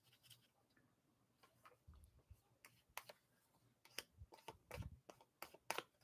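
Faint, scattered clicks and taps of small craft supplies being handled at a worktable, coming more often in the second half.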